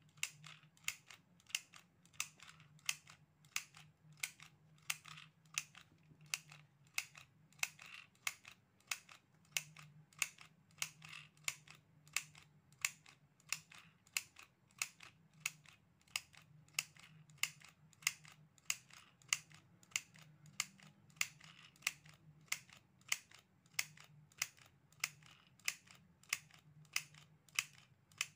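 Handheld mini sewing machine clacking once with each squeeze of its handle as it stitches, at a steady pace of about three stitches every two seconds.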